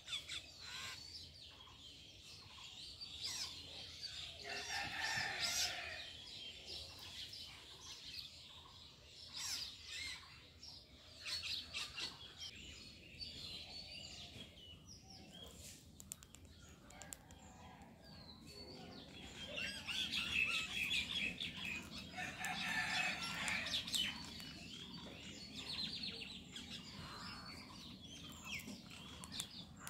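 Birds chirping, with a rooster crowing among them. The loudest calls come about five seconds in and again from about twenty to twenty-four seconds in.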